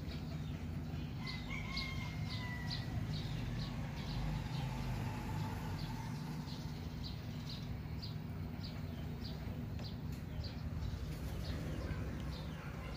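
Birds chirping, short high chirps two or three times a second, with one longer drawn-out call about a second in, over a steady low hum.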